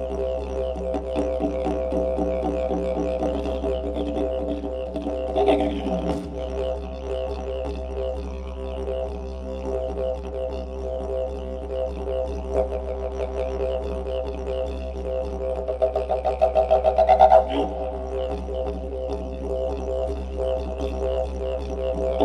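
Background music led by a didgeridoo, droning steadily with a falling swoop about five seconds in and a run of quick, louder pulses near seventeen seconds.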